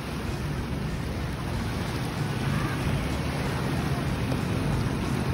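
Wind buffeting the microphone over small waves lapping and breaking at a lake shore, a steady noise without pauses.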